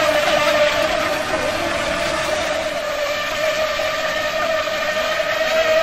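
Radio-controlled speedboats running flat out on open water: a steady motor whine of one held pitch with overtones, wavering slightly as the boats turn.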